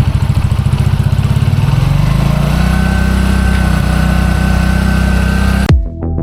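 Bajaj Vikram V15 motorcycle's single-cylinder engine running, first with evenly spaced pulses, then rising in pitch about two seconds in and held at the higher speed. It cuts off suddenly near the end, where electronic music begins.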